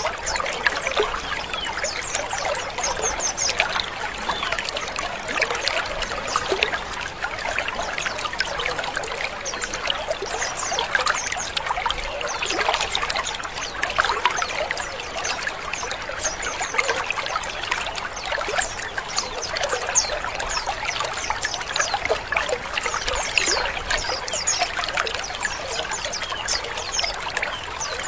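A colony of white-eyes (pleci) calling together: a dense, continuous chorus of overlapping short, high chirps and twitters.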